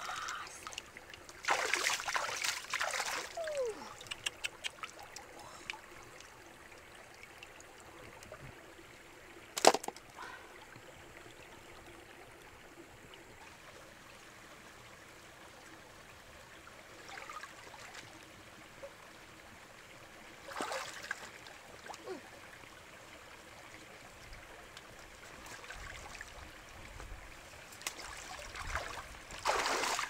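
Shallow stream water splashing and dripping as a freshwater mussel is lifted and rinsed by hand: a few bursts of splashing over a faint steady trickle. One sharp knock about ten seconds in.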